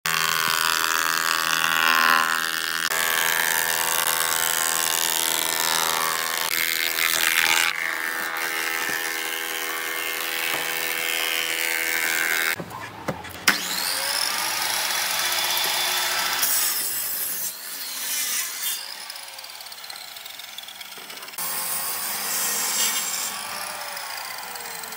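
Woodworking power machines cutting and planing wood, in short stretches that change abruptly every few seconds. A steady machine whine opens it. A wood planer is throwing out shavings around the middle, and a miter saw is working near the end.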